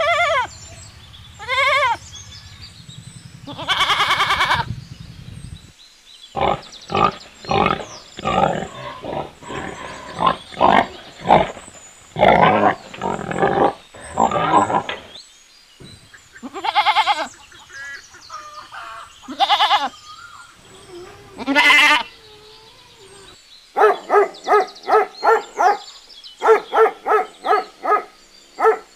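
A string of farm and domestic animal calls. A goat bleats several times, with one long bleat about four seconds in. Pigs then grunt in quick short series, three louder drawn-out calls follow, and near the end a dog barks in a fast run of about three barks a second.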